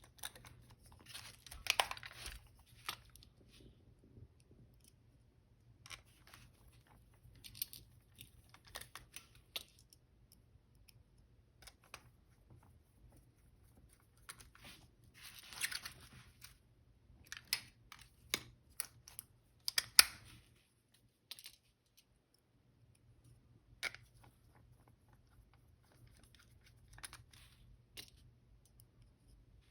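Scattered small clicks, taps and brief scratchy rustles of tools and small metal parts being handled on a Canon A-1 camera body during reassembly, with the sharpest click about twenty seconds in, over a faint low hum.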